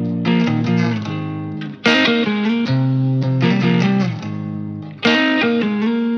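Guitar-led background music, with new chords struck about two seconds in and again about five seconds in.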